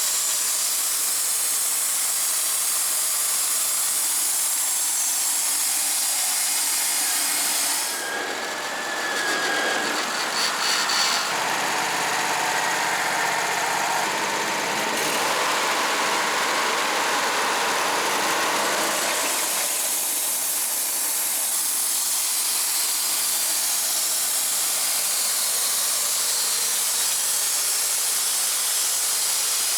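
Wood-Mizer LT35 band sawmill running, its blade cutting through a pine log with a steady hiss. From about eight seconds in the sound turns duller and lower for roughly ten seconds, then settles back to the same hiss.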